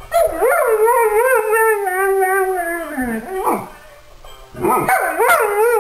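Briard howling: a long wavering howl of about three seconds, a short rising yelp, then a second long howl starting about four and a half seconds in.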